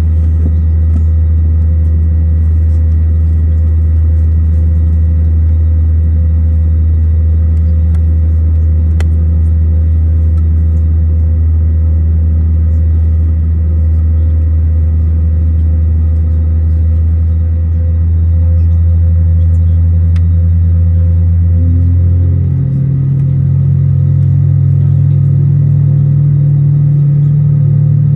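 Steady low drone inside an Airbus A320neo cabin standing at the gate, the aircraft's air supply and systems running. About 22 seconds in, the deep drone drops away and a slightly higher hum takes over.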